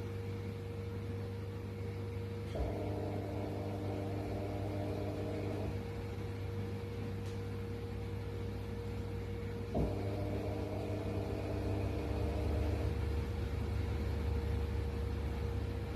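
Washer-dryer running with a steady low hum. About every seven seconds a click sounds and a higher motor tone comes on for about three seconds, then drops away.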